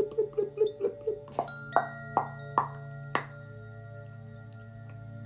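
Five bell-like metal strikes, about half a second apart, each ringing on with several clear steady tones over a low steady drone. Before them a fast pulsing tone slows and fades out within the first second.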